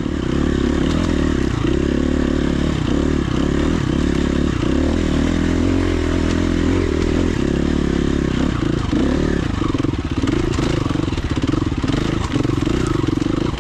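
Dual sport motorcycle engine running under way on a dirt trail, its note shifting a little with the throttle, with short knocks and rattles from the bike over rough ground near the end.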